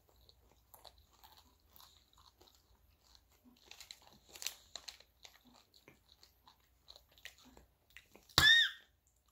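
Faint, irregular crunching and chewing of candy-coated M&Ms in the mouth, busier around halfway through. Near the end, one short, loud, high-pitched vocal squeal.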